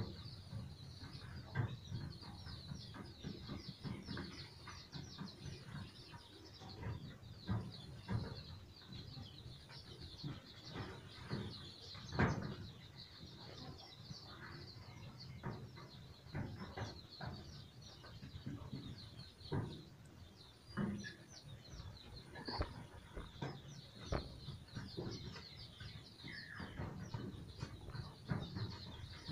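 A flock of week-old domestic chicks peeping constantly in quick, high chirps, with scattered knocks and clicks, the loudest about twelve seconds in.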